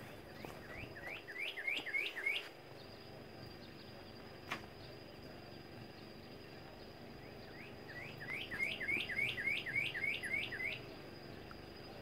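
Northern cardinal singing: two phrases of rapidly repeated clear whistled notes, each note slurring upward, at about four notes a second. The first phrase is short and starts about half a second in; a longer one of about a dozen notes comes after about eight seconds. A single brief click falls between them.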